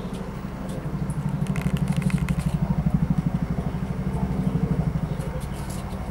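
An engine running steadily with a fast, even throb, louder through the middle, with a few light clicks and crackles over it.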